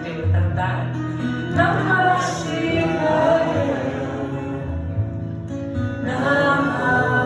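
Live kirtan music: voices chanting a devotional song over strummed acoustic guitar.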